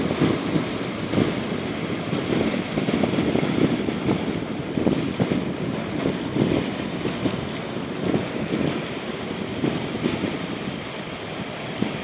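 Wind buffeting the microphone in uneven gusts, over the wash of small waves at the shoreline.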